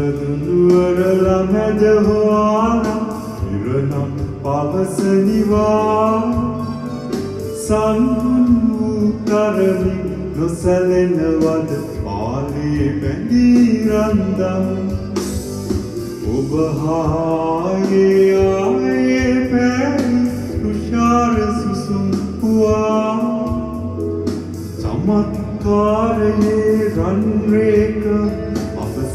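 Sinhala film song: a man singing a slow, flowing melody with instrumental accompaniment.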